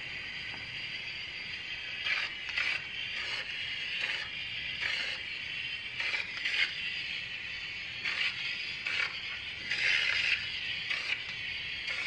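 Paint spray gun hissing as it sprays paint, with short louder spurts every second or so as the trigger is worked.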